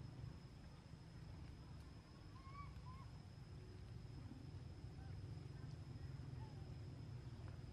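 Faint outdoor background: a steady low rumble and a thin, steady high tone, with a few faint short chirping calls about two to three seconds in and a couple more later.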